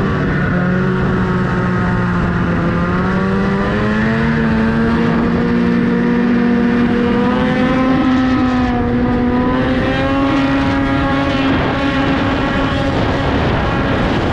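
Snowmobile engine running steadily under way, its pitch drifting slowly upward, with wind rumbling on the microphone.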